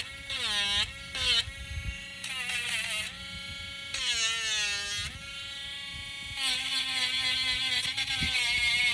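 Small electric sander's motor running, its pitch dipping and recovering several times as wood is pressed against the sandpaper and eased off. From about two-thirds of the way in, a harsher grinding noise of wood on the sandpaper joins in.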